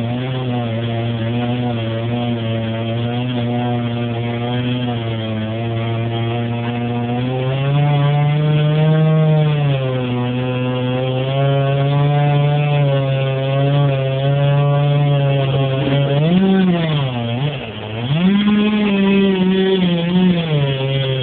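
Chainsaw running at high revs, its pitch rising and falling as the load changes while cutting. About three-quarters of the way through the speed drops sharply, then revs back up.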